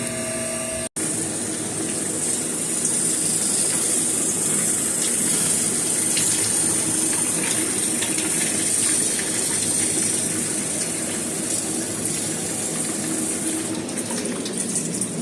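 Steady trickle and hiss of water, with scattered faint ticks, as ice thaws off a walk-in cooler's evaporator coil during a defrost cycle.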